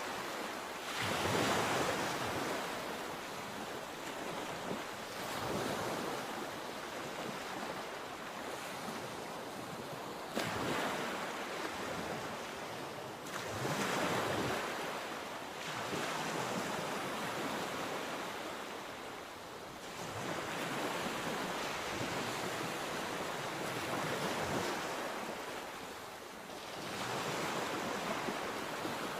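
Sea waves breaking and washing up the shore, a fresh surge every three to six seconds.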